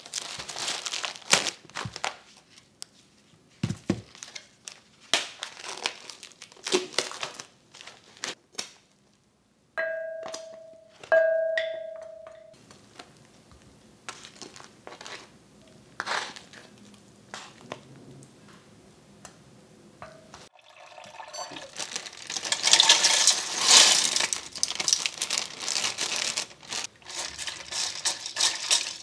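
Plastic food trays and wrapping crinkling and crackling as pork ribs are unpacked, then two short electronic beeps about ten seconds in, followed by the clicks of metal tongs and ribs dropping into a glass bowl. From about twenty seconds in, tap water runs steadily over a stainless mesh colander while dried lotus seeds and yam slices are stirred and rinsed by hand.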